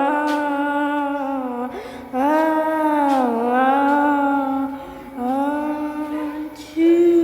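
A high voice holding long, drawn-out notes in several phrases of about two seconds each, with short breaks between them and the pitch dipping and rising within each phrase.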